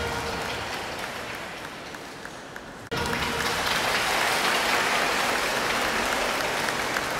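Congregation applauding, a steady patter of many hands clapping that starts suddenly about three seconds in. Before it, background music fades away.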